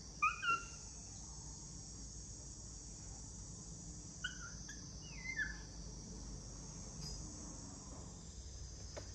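Baby monkey giving short high squeaks, two just after the start and three more around the middle, over a steady high hum of insects.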